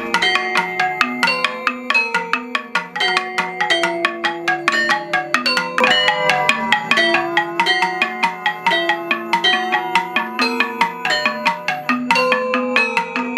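Gamelan caruk, a Balinese ensemble of two saron and a gambang with wooden keys, being played with mallets. It gives a rapid, steady stream of interlocking pitched strikes, the melody stepping up and down.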